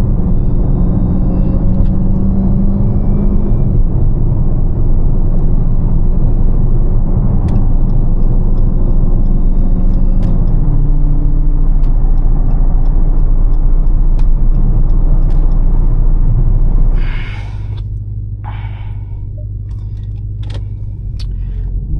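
Supercharged 6.2-litre HEMI V8 of a 2021 Dodge Charger Hellcat under way: a loud, steady engine and road rumble whose pitch steps as it moves through the gears. About seventeen seconds in it falls much quieter as the car eases off.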